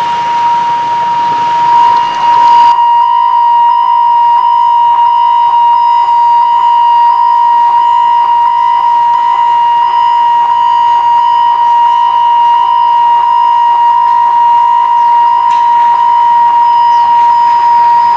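A steady, loud electronic warning tone held on one pitch, with faint regular pulses in it. A rushing noise beneath it cuts off suddenly about three seconds in.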